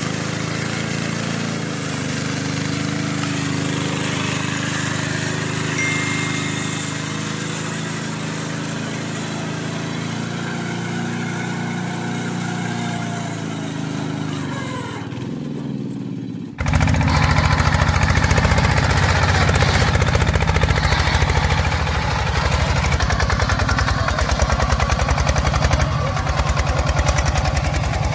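Power tiller's single-cylinder diesel engine running as it drives its loaded trolley through mud. About halfway through the sound jumps louder and closer, with a rapid, even beat of firing strokes.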